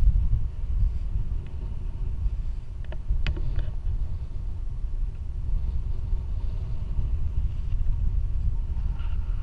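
Wind buffeting a pole-mounted camera's microphone during a tandem paragliding flight: a steady low rumble, with a few brief clicks about three seconds in.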